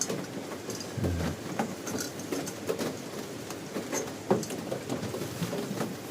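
Irregular light clicks and taps of small metal camping-stove gear and a gas canister being handled, with a soft thump about a second in.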